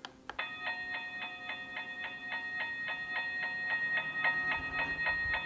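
Toy railroad crossing gate's electronic crossing bell ringing fast, about four dings a second, starting after a click near the beginning.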